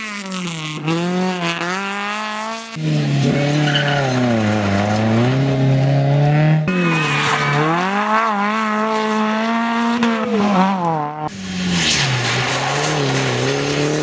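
Rally cars driven hard through a gravel corner one after another, engines revving up and falling away as they change gear, over the crunch and scrabble of tyres on loose gravel. The sound changes abruptly three times, once for each new car.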